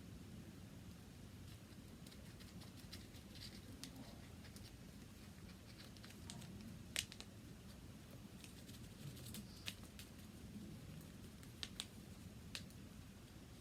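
Faint, scattered clicks and light taps from slime-making supplies being cut, handled and poured, with a few sharper ticks in the second half.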